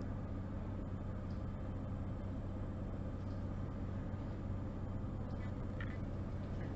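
Steady low hum with a faint hiss: classroom room tone. A few faint clicks come about five and a half seconds in.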